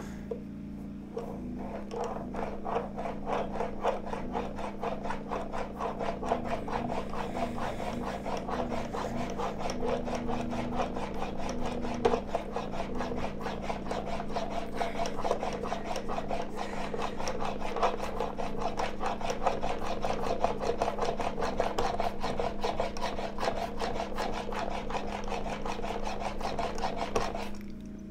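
Plane blade being rubbed back and forth on a 16,000-grit Shapton glass water stone in quick, steady strokes, the final polishing stage of sharpening. The strokes stop near the end.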